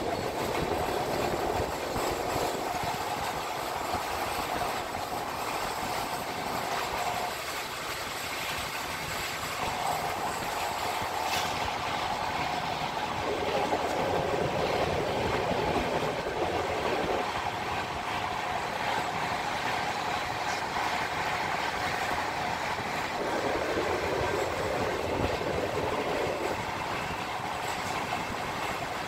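Indian Railways express-train passenger coaches passing close by: a steady, continuous noise of the wheels running on the rails and the carriages rattling.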